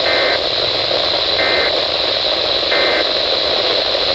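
Three short bursts of two-tone SAME data, about 1.4 s apart: the end-of-message code of an emergency alert broadcast, over a steady loud radio static hiss.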